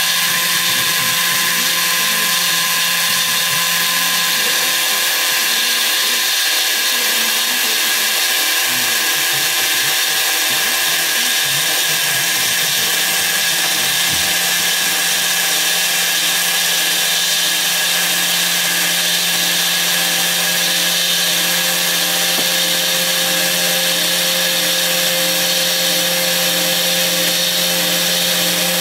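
Spindle motor of a homemade CNC router running steadily at high speed, a continuous hiss with a steady whine, as the bit cuts into a foam block.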